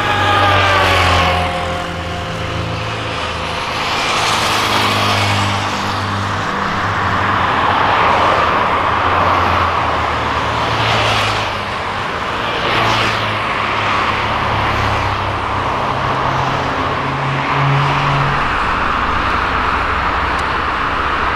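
Steady jet-engine roar from a Boeing 777F moving along the runway, mixed with road vehicles passing several times, each one swelling and fading.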